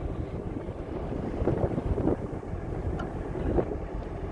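Wind buffeting the microphone over a low, steady rumble, with a few faint knocks.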